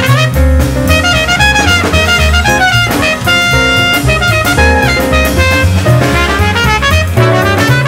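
Background music with drums, a bass line and a melody.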